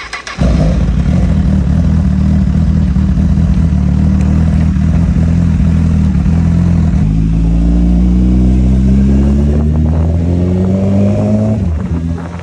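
Honda motorcycle engine running loud and steady, coming in suddenly just after the start, then rising in pitch from about seven seconds in as the bike pulls away and accelerates, with a brief dip near the end as it changes gear.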